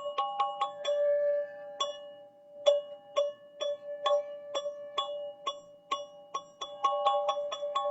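Teal ZenTube played in a quick, steady run of struck, ringing notes on a few repeating pitches, about three to four notes a second; about a second in the run pauses briefly while one note rings on, then resumes.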